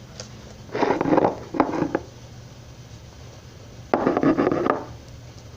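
Kinetic sand slime with jelly cubes inside being squished and pressed by hand, in three short bursts: two close together about a second in, and a longer one about four seconds in.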